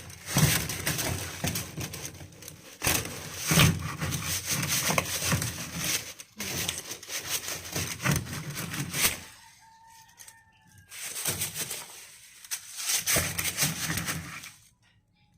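Irregular rustling and knocking, loudest in the first nine seconds and again near the end. About ten seconds in, during a quieter gap, a rooster crows faintly once.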